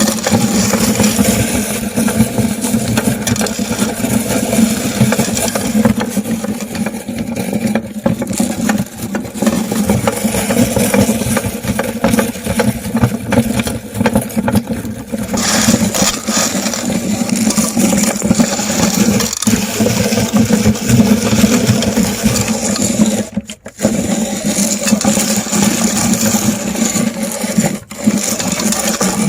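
Electric meat grinder running under load, its motor humming steadily while chocolate candy grinds and rattles through it. The grinding gets brighter about halfway through, and the sound drops out briefly twice near the end.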